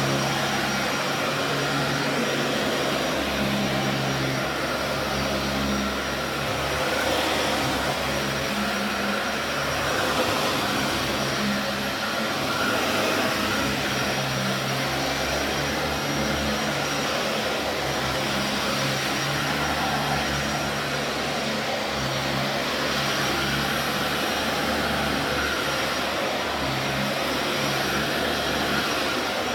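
Dyson DC40 Animal upright vacuum cleaner running steadily while vacuuming carpet, with a low hum that comes and goes every second or two.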